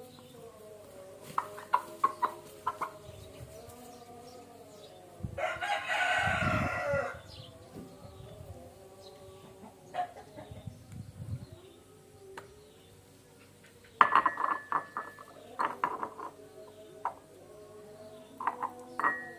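Chickens: a rooster crows once, loudly, a little over five seconds in, with clusters of short clucks before and after it.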